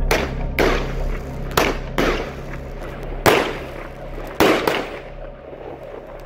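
Weco 'Shock Attack' 35-shot consumer firework battery (25 mm calibre) firing: about seven sharp bangs at uneven intervals, each trailing off in an echo.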